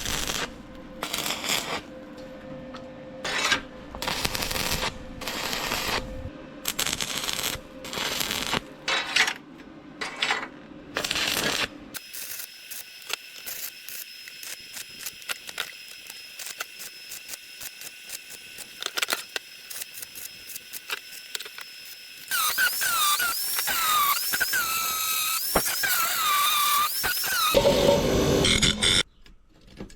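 Power-tool work on steel in short stop-start bursts, followed later by a run of repeated rising and falling squeals over a steady noise.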